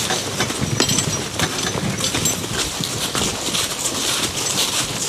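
A team of Belgian draft horses walking along a leaf-covered forest trail, their hoofbeats mixed with a steady rustle as they drag a train of loaded canoes.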